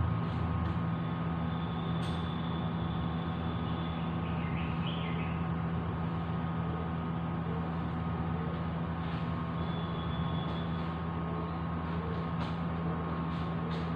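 Steady mechanical hum, a continuous drone with a few fixed tones in it, and a few faint ticks scattered through.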